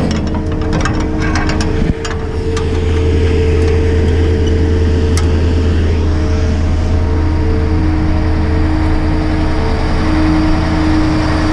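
Tadano 180G-5 all-terrain crane's carrier diesel engine idling steadily.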